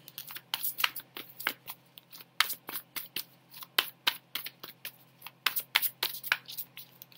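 Tarot cards being shuffled by hand off-camera: a quick, uneven run of short snapping clicks, three or four a second.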